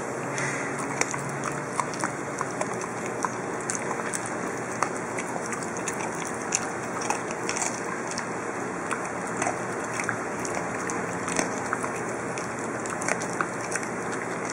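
Norwegian Elkhound puppy chewing raw carrot: a run of irregular, sharp crunches and clicks over a steady background hiss.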